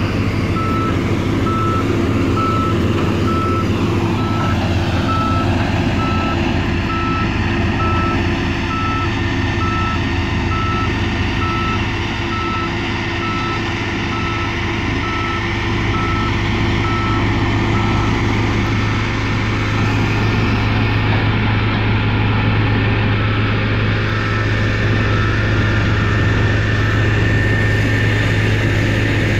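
A reversing alarm on heavy construction machinery beeps steadily in a regular single-tone series and stops near the end, over the steady running of the diesel engines of an excavator and a road roller.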